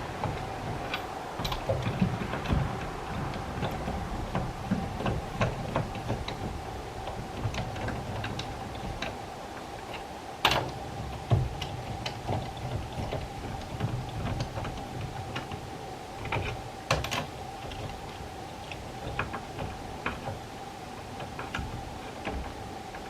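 Irregular metallic clicks and knocks of hand-tool work, two of them louder about ten and seventeen seconds in, over a steady faint hum.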